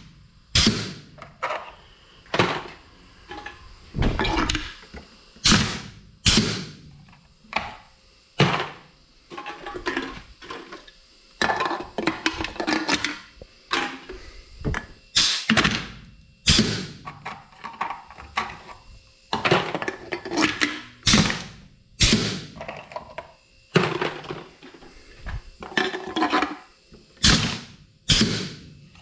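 Homemade wall-mounted pneumatic can crusher being cycled over and over with its momentary air valve: the air cylinder fires and returns in a series of sharp bangs with short air-blast tails, about one every second or two, some in quick pairs.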